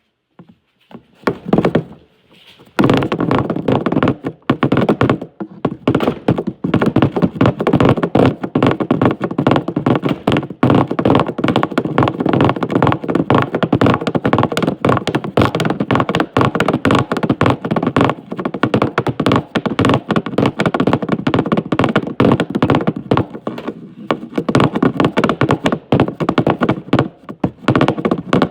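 Quiet for nearly three seconds, then a rapid, unbroken run of tapping and knocking strokes, many per second.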